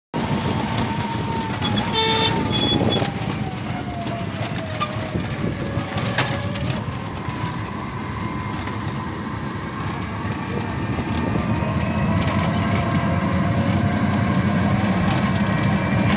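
Riding in a small canopied vehicle on a rough rural road: a steady rattle and road noise, with a motor whine that slides down in pitch and later rises again. Two short horn beeps come about two seconds in.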